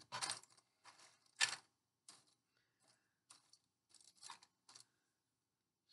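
Light, irregular clicks and taps of cardboard jigsaw pieces being picked up and set down on a table, about ten in all, the sharpest about a second and a half in.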